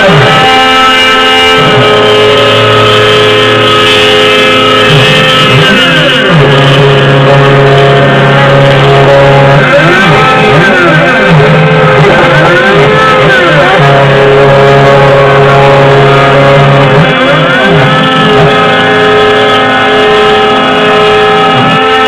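Loud background music with long held low notes that change every few seconds.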